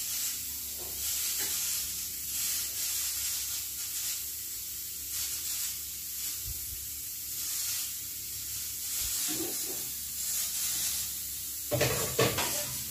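Cooking oil sizzling on a hot flat tawa as it is poured on and spreads, a steady fluctuating hiss, with a faint low hum underneath.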